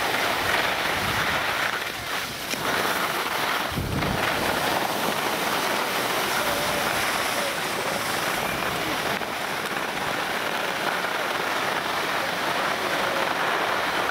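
Steady hissing rush of skis sliding over packed snow, with wind buffeting the microphone in a couple of low gusts near the start.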